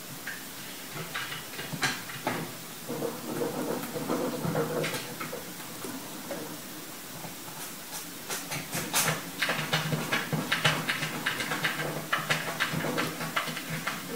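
A cat pawing and scratching at a kitchen drawer front and its handle: a run of light clicks and knocks, scattered at first and coming thick and fast over the second half.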